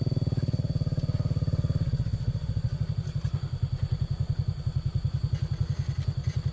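A small engine running with an even chugging beat, easing to a slightly slower pace about two seconds in.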